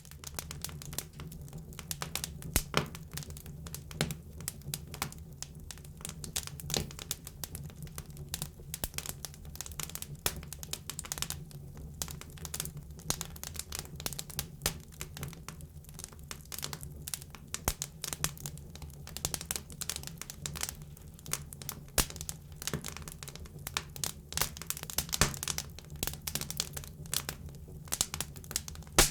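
Campfire burning close up, with dense irregular crackles and pops from the burning wood over a steady low roar of the flames.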